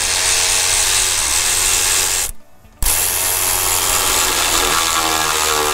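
Impact wrench running on an intercooler boot band clamp in two bursts, with a short break about two seconds in. Using the impact on it overtightens the clamp and breaks it.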